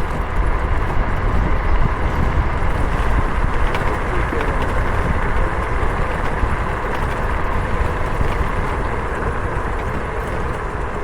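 Wind rushing over the microphone with steady road noise from a moving bike, a continuous loud rumble without a clear engine note.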